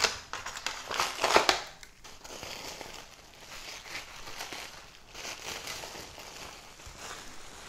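Aluminium foil and plastic cling wrap crinkling as they are pulled off a wrapped block. Sharp, louder crackles in the first second and a half, then quieter, continuous crinkling as the plastic is peeled away.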